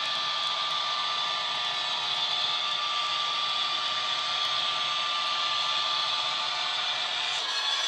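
OO gauge model freight train running: a steady whirring hiss with a held high whine, from the locomotive's DCC sound decoder playing a Class 66 diesel sound file over the wagons' wheels rolling on the track. Near the end it turns to a rattling clatter of wheels on the track.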